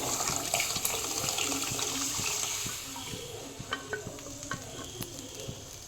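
Cooked dal poured into a pot of simmering tamarind water, a splashing pour for the first few seconds, then a spoon knocking against the pot as it is stirred in.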